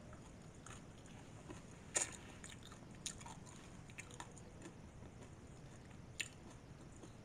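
Faint mouth sounds of someone chewing a sticky, sugar-glazed glutinous-rice twist (pilipit), with a few small clicks and smacks, the sharpest about two seconds in.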